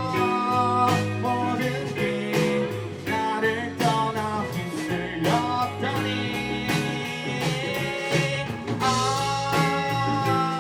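Live band music: guitars, bass and drums playing with a steady beat.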